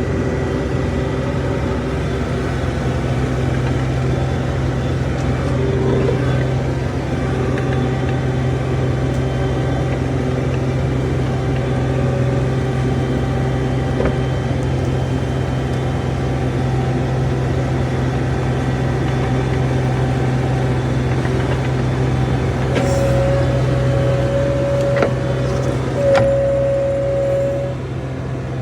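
John Deere 250 skid steer's diesel engine running steadily, a constant low drone. Near the end a higher, steady whine comes in twice for a second or two each time.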